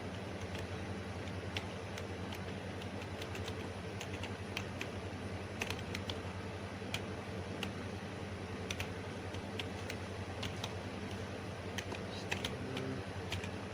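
Computer keyboard being typed on: irregular, scattered key clicks over a steady low hum.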